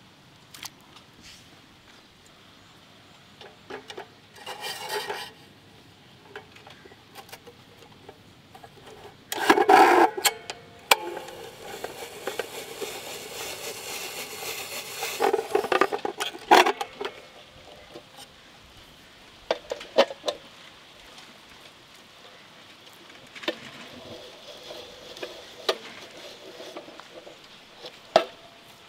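Hand-cranked stainless steel spiral potato cutter turning a skewered raw potato through its blade, a scraping cut of about seven seconds in the middle. Scattered short taps and rustles of the potato being handled come before and after it.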